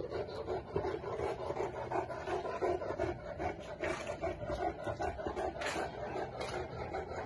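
Saint Bernard dog panting, a quick, even, continuous rhythm of breaths.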